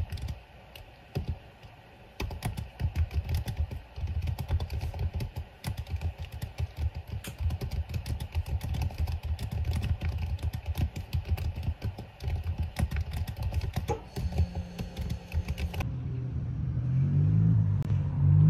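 Fast typing on a computer keyboard, a quick run of key clicks with brief pauses, speeding up as it goes. About 16 seconds in the typing stops and soft music comes in, louder than the typing.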